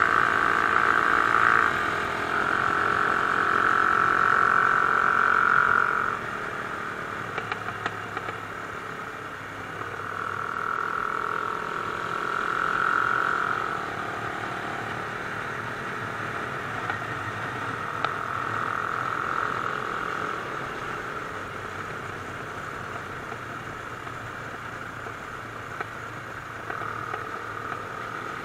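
Mash Cafe Racer 250 motorcycle engine running at road speed, heard from on board. A high steady engine note swells and fades several times, loudest in the first six seconds.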